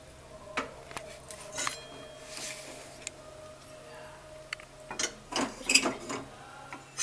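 Metal spatula clinking and scraping against an empty steel kadhai: a few scattered clicks, with a louder cluster of clinks about five seconds in.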